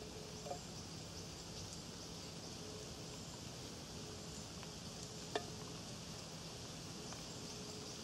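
Quiet forest ambience, a faint steady high hiss, with a soft click near the start and one light tick about five seconds in as a spoon scoops from a steel thermos.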